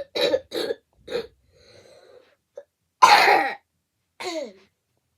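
A person coughing in a fit: a quick run of short coughs in the first second or so, then a louder cough about three seconds in and a last, shorter one that trails off in a falling voice.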